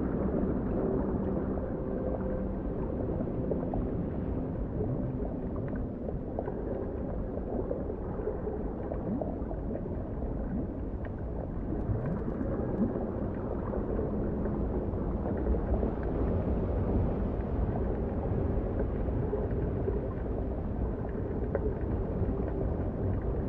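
Underwater ambience: a steady low rumbling wash of noise.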